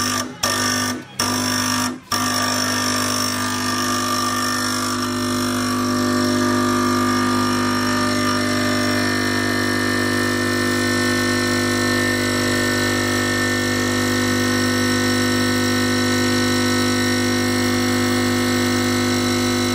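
Espresso machine's pump running steadily as a shot pulls into the glass, a loud even hum with several steady tones above it. It cuts out and restarts three times in the first two seconds, then runs without a break.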